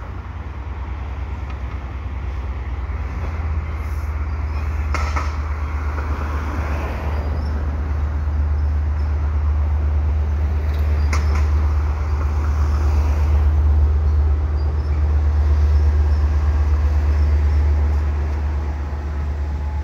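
Commuter train crossing a steel girder bridge overhead: a steady low rumble of multilevel coaches rolling over the span, with two sharp clanks about 5 and 11 seconds in. The rumble grows louder near the end as the trailing F59PHi diesel locomotive passes over.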